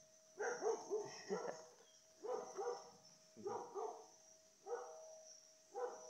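A dog barking repeatedly, a bark or a quick pair of barks about every second.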